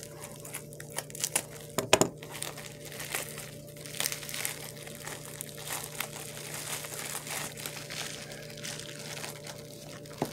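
Bubble wrap and plastic packaging crinkling and crackling as hands unwrap a gift, with a burst of louder crackles about two seconds in. A faint steady hum sits underneath.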